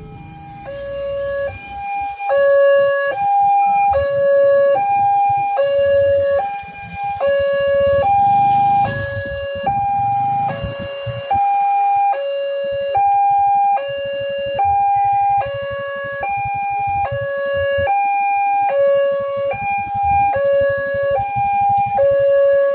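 Two-tone hi-lo siren, switching back and forth between a high and a low note roughly every two-thirds of a second, over a low, uneven rumble.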